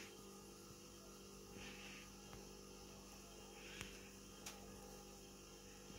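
Near silence: a low, steady electrical hum with faint hiss, broken by a couple of tiny clicks.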